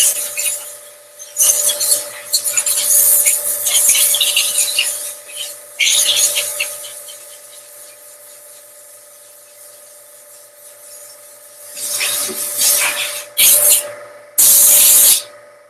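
Hand sanding on a micro truck's body panel: sandpaper rasping over the metal and primer in bursts of scratchy strokes, pausing for several seconds midway, then starting again. Near the end there is a short, loud burst of hiss.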